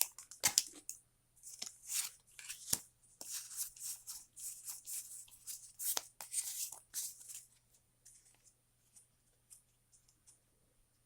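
Foil wrapper of a Pokémon booster pack crinkling and rustling in irregular bursts as the pack is opened and the cards are pulled out and handled. It goes quiet about three-quarters of the way through, leaving only a few faint clicks.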